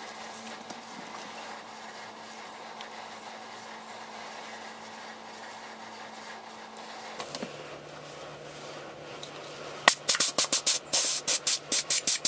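Steady faint hiss, then from about ten seconds in a quick run of loud scuffs and rustles as a rubber inner tube is worked into a motorcycle tyre.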